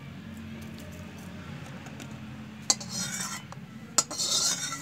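A steel spoon clinks against a steel bowl twice, about a second and a half apart, each clink followed by a brief dry rustle of crisp fried potato chips.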